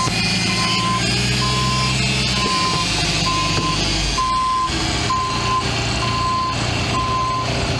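Backup alarm on a 2016 Ottawa YT30 yard truck, beeping steadily about once a second as the truck reverses, over its diesel engine running.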